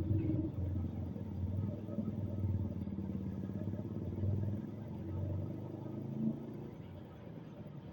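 A motor running steadily, its sound low-pitched with a fast, fluttering pulse.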